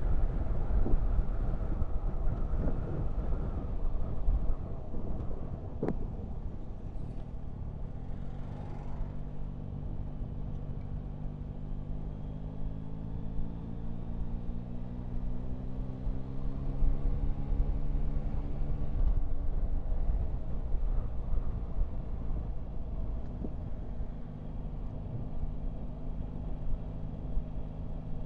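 Motorcycle being ridden, with wind rumble on the microphone. The engine note rises slowly as the bike pulls in one gear, falls away about two-thirds of the way through, and comes back steady near the end.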